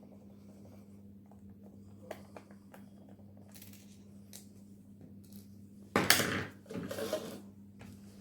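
Light clicks of a screwdriver and small metal parts being handled, then a louder metallic clatter about six seconds in, twice in quick succession. A steady low electrical hum sits underneath.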